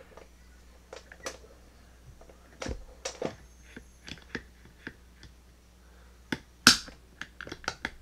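Scattered metallic clicks and clinks from an old, rusty steel railroad padlock and its attached chain as the lock and its shackle are handled in a vise. One sharp click comes late on, then a quick run of lighter clicks at the end.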